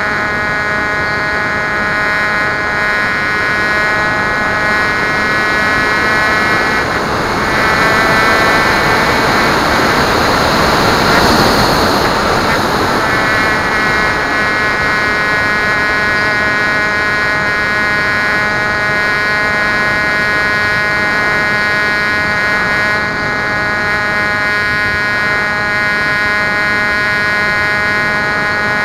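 Electric pusher motor and propeller of a Bixler RC plane, heard from on board, whining at a steady pitch over a rush of air. From about 7 to 13 s the whine fades under a louder rush of wind, then returns steady.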